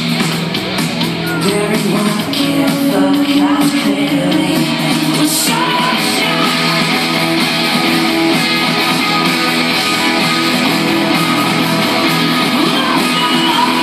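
Rock band playing live through a big outdoor PA, with electric guitars and a sung vocal, heard loud from within the audience.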